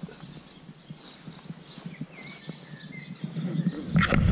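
Small birds chirping and twittering in the morning outdoors, with scattered faint knocks. About four seconds in, a loud rustle and thump.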